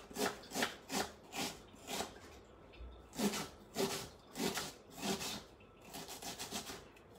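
Kitchen knife slicing through an onion onto a wooden cutting board: a run of separate scraping cuts about two a second, pausing briefly around two and a half seconds in, then going on more softly near the end.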